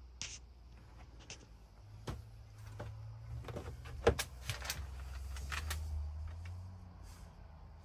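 Handling and movement noise inside a small vehicle cabin: scattered light clicks and rustles over a low steady hum, the sharpest click about four seconds in.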